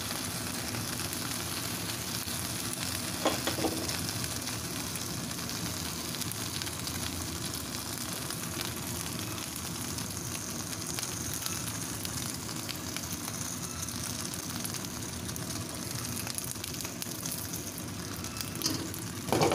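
Chicken fillets sizzling steadily in oil on baking paper in a wok, with a couple of short knocks about three seconds in and again near the end.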